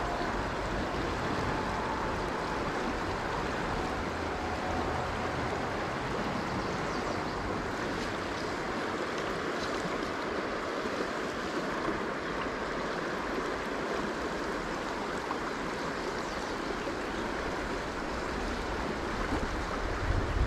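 River water rushing steadily over a trout stream's run.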